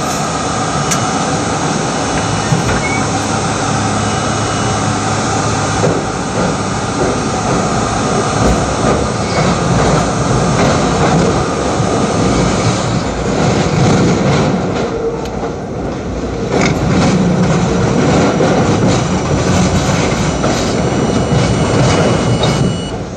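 R32 subway train running through a tunnel, heard from inside the car: continuous wheel-and-rail noise with clattering over the rail joints and a thin steady high tone, dipping briefly about two-thirds of the way through before picking up again.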